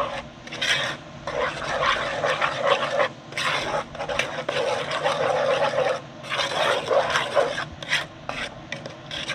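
A wooden spoon stirring a thick, gritty mix of ketchup and brown sugar in a heavy pot, rasping and scraping against the bottom and sides. It goes in long stretches with brief pauses between strokes.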